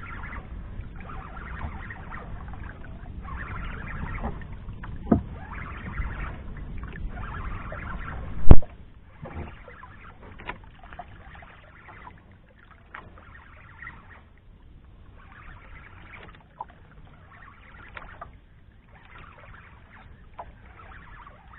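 Water washing against the hull of a small outrigger boat in repeated splashy swells, about one every couple of seconds, with a single loud knock about eight seconds in.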